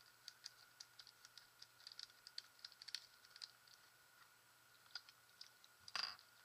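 Light plastic clicks and taps from fingers handling the plastic casing of a VIO POV.HD recording unit, working at the port cover on its back. Over the first few seconds the clicks come quickly and irregularly. About six seconds in there is one fuller knock as the unit is moved. A faint steady high tone runs underneath.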